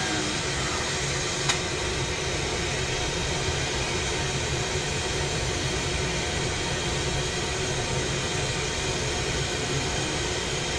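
Large glassworking torch burning with a steady rushing hiss as its flame heats glass turning on a glass lathe. One brief click about a second and a half in.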